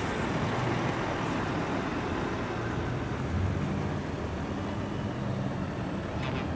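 Truck engine running as the truck passes close, amid steady traffic noise; a low, steady engine note comes up about halfway through.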